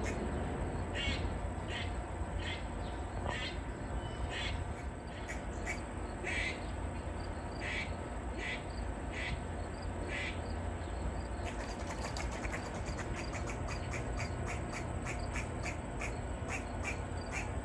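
Grey squirrel barking its distress call: a long run of short, sharp barks, about one every second at first, then quickening to about three a second for the last third.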